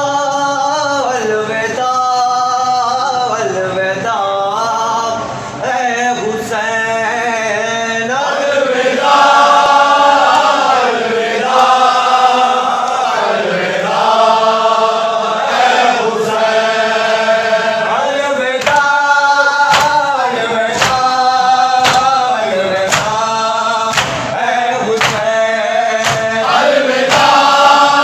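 Group of men reciting an Urdu noha, a Shia lament, chanting in unison. Rhythmic matam hand strikes beat time, scattered at first and then steady at about one every three-quarters of a second through the second half.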